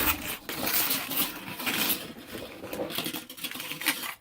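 Hands working a sticky butter slime out of its container: irregular clicking, crackling and scraping of the container and slime.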